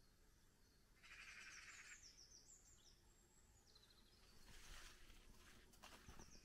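Faint birdsong in a quiet outdoor setting: a short harsh, buzzy call about a second in, then a run of high notes falling in pitch. Soft footsteps and rustling come in near the end.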